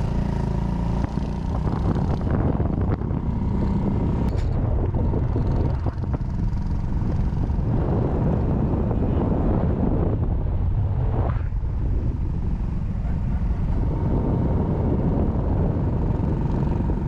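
Honda Cross Cub 110's single-cylinder engine running at speed, heard with heavy wind noise on the microphone while riding.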